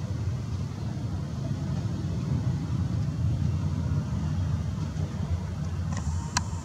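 Steady low rumble of a Boeing 737-800 being pushed back by a tug across the apron, with a short sharp click about six seconds in.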